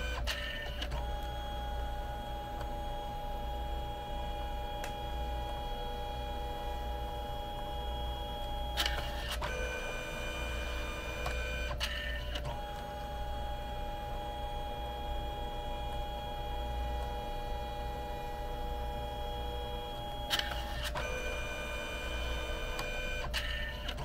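Canon Selphy CP1300 dye-sublimation photo printer printing. Its feed motor whines steadily for about eight seconds, switches with a click to a different, shorter whine for about two seconds, then repeats the cycle, as the paper shuttles through for each colour pass. A steady low hum runs underneath.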